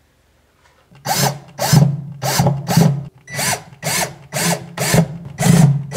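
Cordless drill driving screws into a wooden cabinet panel in short trigger bursts, about two a second, starting about a second in.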